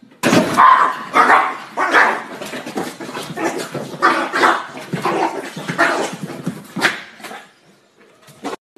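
Small dog barking repeatedly, about a dozen barks in quick succession that stop about a second before the end.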